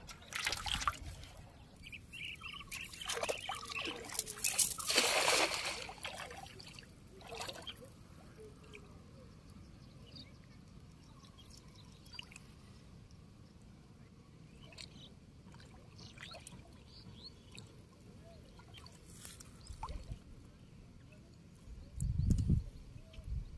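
Shallow water splashing and sloshing in several short bursts during the first eight seconds or so, as someone wades and works a fishing net. After that only a faint steady background, with a couple of low thumps near the end.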